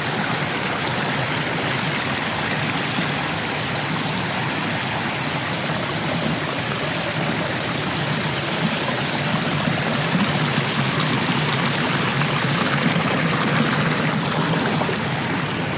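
Rain-swollen creek in flood, its water rushing steadily.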